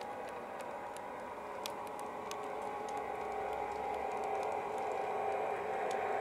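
O gauge three-rail model freight train rolling along the track: a steady running rumble with scattered light clicks, growing gradually louder over the second half.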